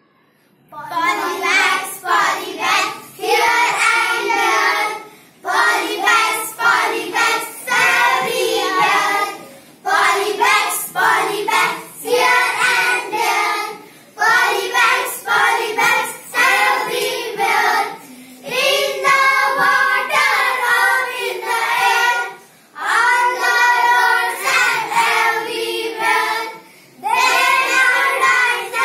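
A group of children singing together in unison, in phrases of a few seconds with short breaks between them, starting about a second in.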